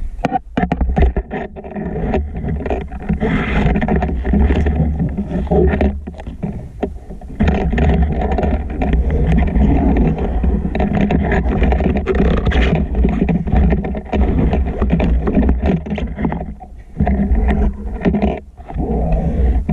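Muffled underwater noise picked up by a camera housing mounted on a speargun as the diver swims: a steady low rumble of water with irregular scrapes and knocks from the gear.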